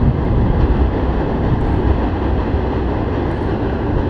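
A steady low rumble of a heavy vehicle crossing a bridge, unbroken throughout.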